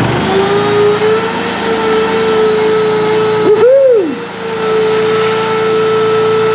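A shop vacuum running off a Honda EU2000i inverter generator. The vacuum motor's whine spins up just after the start and then holds steady, with a brief swoop up and down in pitch about three and a half seconds in. Under it, the generator's engine steps up out of eco mode to carry the load.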